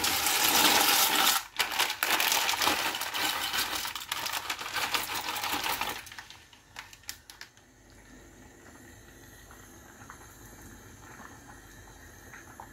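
Dry pasta poured from plastic packets into a pot of water, a dense rattling rush of pieces hitting the pot and the water with some bag crinkle. It stops after about six seconds, leaving a few stray clicks and a faint steady background.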